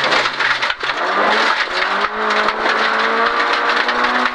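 VW Golf 16S rally car's Oettinger 16-valve four-cylinder engine heard from inside the cabin, accelerating hard. The revs climb, drop briefly at a gear change about two seconds in, then climb again, over steady gravel and road noise.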